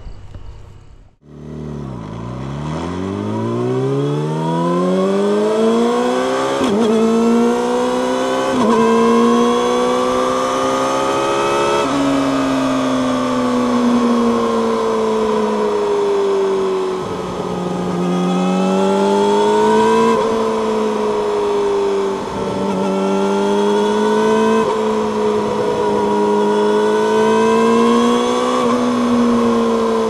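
Yamaha YZF-R6's 599 cc inline-four through an Akrapovic megaphone slip-on exhaust, accelerating hard through the gears with a sudden drop in pitch at each of about three upshifts. It then settles into cruising, the revs rising and falling gently.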